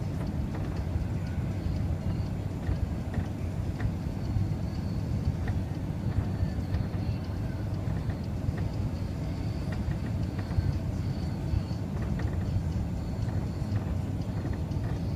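Steady cabin noise inside an Airbus A380 on final approach with flaps extended: an even low rumble of the engines and the air rushing past, with a faint high whine above it.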